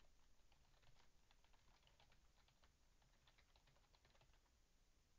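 Faint typing on a computer keyboard, a quick irregular run of keystrokes that stops about four seconds in.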